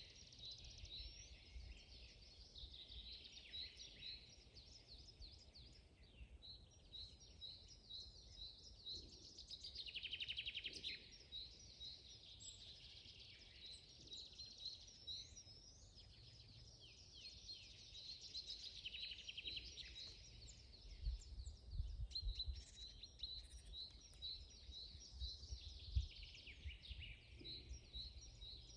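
Forest birds singing: several birds giving many short repeated chirps and fast trills that overlap continuously. A faint low rumble runs underneath, with a brief thump about three-quarters of the way through.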